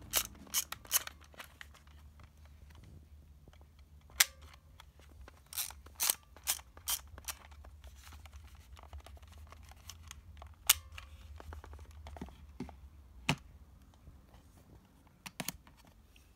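Hanimex 35ES compact 35 mm film camera being worked by hand: sharp plastic clicks and snaps from its controls and sliding lens cover, in irregular groups. A run of five clicks comes about five to seven seconds in, and single louder snaps come about four and eleven seconds in.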